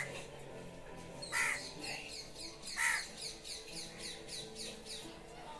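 Birds calling outdoors: a loud call repeated three times, about a second and a half apart, over a fast run of short, high chirps from a smaller bird.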